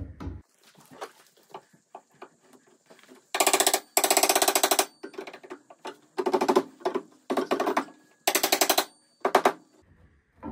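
About six short bursts of fast, rattling mechanical impacts, each lasting half a second to a second, with the first two being the loudest.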